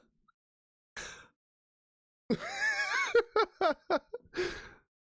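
A man laughing hard. There is a sharp breath about a second in, then a long burst of laughter that breaks into several quick ha-ha pulses and ends on a breathy exhale.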